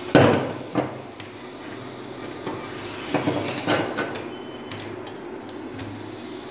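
Handling noise as a stiff PVC-insulated wire is pulled and laid across a hard floor among plastic lamp holders: a sharp knock just after the start, another shortly after, then scattered clicks and scuffs a few seconds in. A steady low hum sits underneath.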